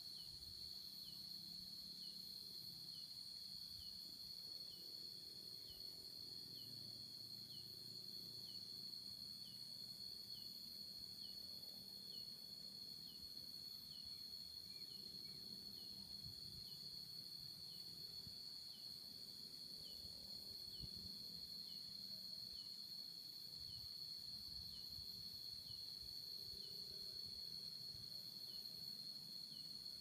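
Steady high-pitched drone of insects, with a faint short chirp repeating about once a second.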